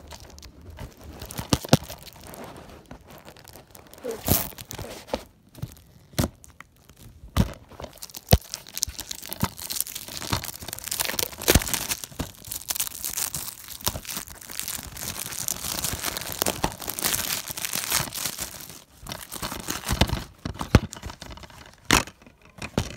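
Wrapping being torn and crinkled off a DVD case, with a long stretch of steady tearing and rustling in the middle. Scattered sharp clicks and knocks come from the plastic case being handled.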